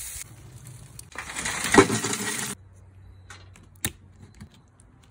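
A loud crunching, crackling burst starts about a second in, lasts about a second and a half and cuts off suddenly. It is followed by a few sharp clicks of kitchen shears snipping through a raw lobster tail's shell.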